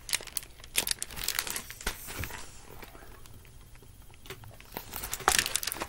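Crinkling and rustling of a hardcover picture book's clear plastic library jacket as the book is handled and its pages turned: a run of small crackles and taps, busiest at the start and again near the end, quieter in between.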